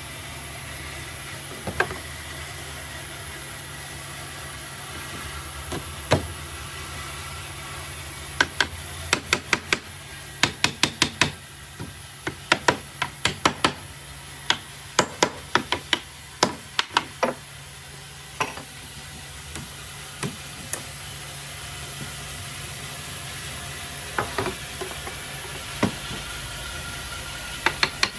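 Sharp knocks on wood, as from a hammer tapping cabinet parts together: a few single knocks, then a dense irregular run of rapid taps through the middle, then scattered knocks. A steady low hum runs underneath.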